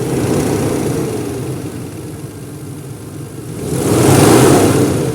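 Warm Toyota 1JZ-GE straight-six engine revved twice from idle: a short rise at the start, then a bigger, louder rev about four seconds in, settling back to idle. The engine is being run to show a knock its owner is chasing.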